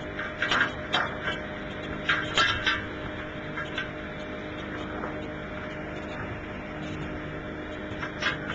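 A steady mechanical hum with several held tones runs throughout, broken by sharp clattering knocks, most of them in the first three seconds.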